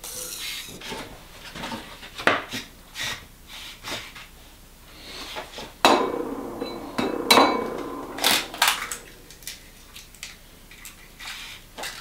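Kitchen worktop clatter: a run of knocks and clinks as a glass bowl and eggs are handled, an egg being cracked into the bowl, with the sharpest knocks about six to nine seconds in.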